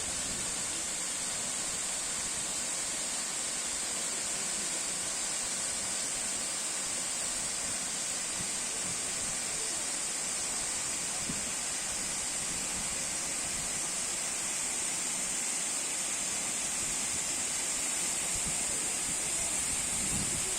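Steady rushing of flowing water, an even unbroken noise with a high steady hiss over it.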